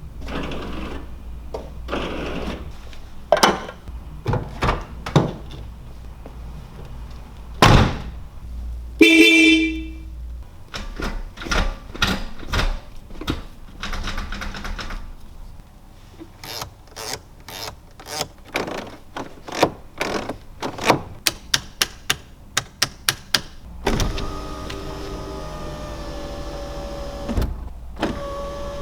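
A 1987 Honda Prelude's fittings and controls being worked one after another: a string of clicks and thunks, a short horn blast about nine seconds in, a quick run of clicks later on, and a steady hum from about three-quarters of the way through, broken by a thump.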